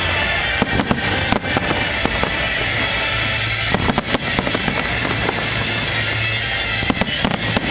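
Fireworks going off in a dense, continuous barrage of bangs and crackles, with the sharpest reports clustered about a second in, around four seconds in and near the end, over steady background music.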